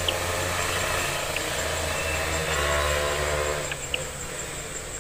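Low steady engine hum with a fainter pitched drone that swells around the middle and fades out near the end. A high steady insect trill and a few light rustling clicks sit under it.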